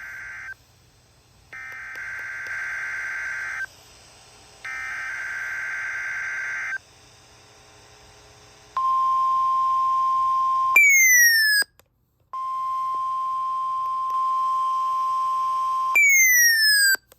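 NOAA Weather Radio test tones: three buzzy two-second bursts of SAME header data, then the 1050 Hz warning alarm tone held steady. The alarm tone is broken twice by a short falling sweep, the loudest sound.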